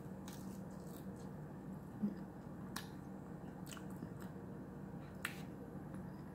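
Quiet eating sounds: fingers picking at banana bread on a ceramic plate, with a light thump about two seconds in and a few sharp clicks later, over a steady low hum.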